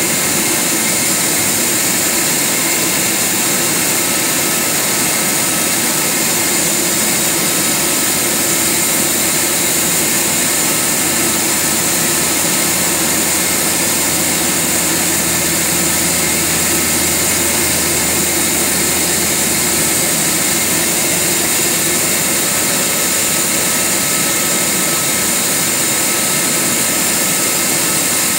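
Boeing 737 Business Jet's turbofan engines running at idle: a loud, steady whine over a high hiss, with a low hum swelling for a few seconds midway.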